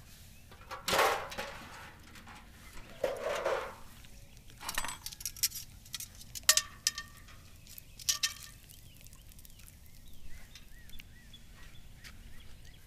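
Cookware and utensils being handled, about five separate clinks and knocks of metal and glass, the loudest two ringing briefly.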